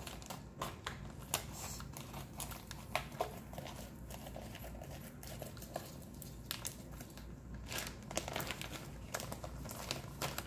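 Wrapping crinkling and rustling on and off, with many small irregular crackles, as skeins of yarn are handled and taken out of a parcel.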